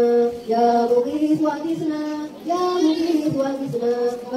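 Women chanting an Arabic religious text to a slow melody, holding long notes that step up and down in pitch.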